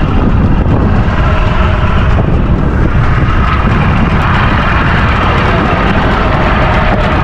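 Heavy wind buffeting the microphone over the steady running of a small boat's engine.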